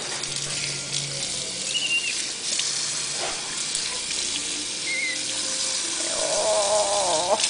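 Bathroom faucet running steadily, water splashing into the sink and over a small animal being washed. Two brief high squeaks about two and five seconds in, and a short wavering cry that falls in pitch near the end.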